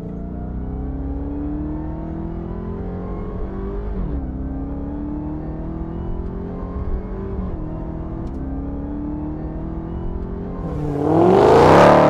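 Supercharged 6.2-litre Hemi V8 of a Dodge Challenger SRT Super Stock accelerating hard, its pitch climbing through each gear and dropping back twice as it shifts up. Near the end it swells into a much louder, steeply rising rev.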